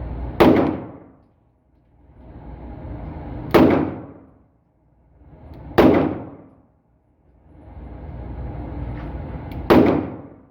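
Four gunshots at a shooting range, each a sharp crack that quickly fades: one about half a second in, then at about three and a half seconds, about six seconds, and near the end.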